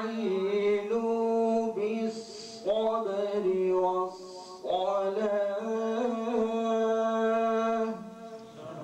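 A man's voice reciting the Quran in the melodic tajweed style: three long phrases of held, ornamented notes with short breaks between them, ending about 8 seconds in.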